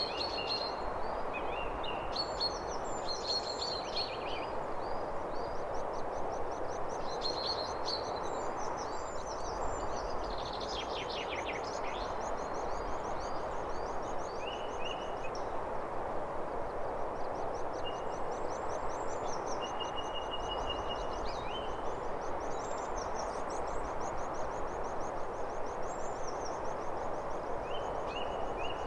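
Steady outdoor ambience: an even hiss throughout, with birds chirping and rapid, high trills over it.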